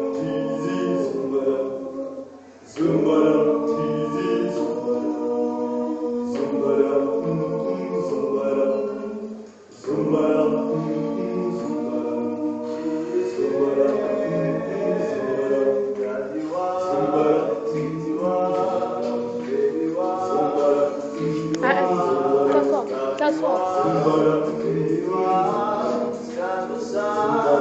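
A choir singing a cappella, several voice parts in harmony, with brief pauses between phrases about two and a half and nine and a half seconds in.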